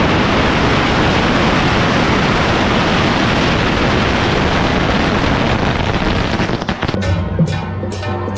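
A long string of firecrackers going off in one continuous dense crackle, which cuts off about seven seconds in. Music with a steady drum beat takes over near the end.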